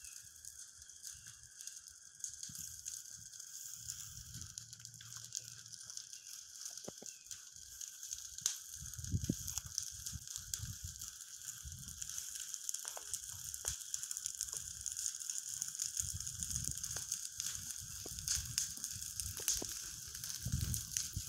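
Footsteps crunching through long grass and dry twigs, irregular and getting busier in the second half, over a steady high chirring hiss.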